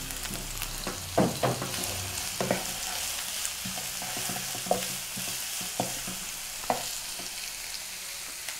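Chopped onion and green capsicum sizzling as they fry in a kadai, stirred with a wooden spatula. The spatula scrapes and knocks against the pan about half a dozen times, loudest a little over a second in.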